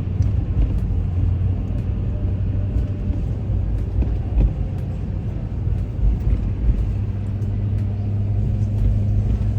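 Steady engine and road rumble heard from inside a moving vehicle's cabin, with a constant low drone.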